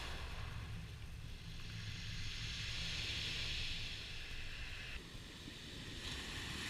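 Small waves breaking and washing over a shingle beach, a steady hiss of surf over pebbles, with a low rumble of wind on the microphone. The sound changes and drops a little about five seconds in.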